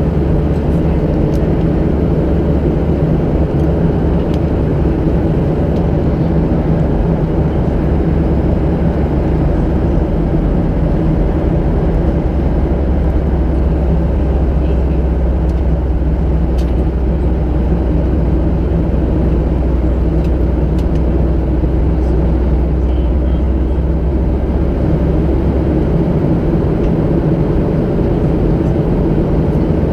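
Cabin noise of a Boeing 737-700 in cruise, heard at a window seat beside the wing and CFM56 engine: a steady drone with a low hum. The deepest part of the hum drops away about four seconds before the end.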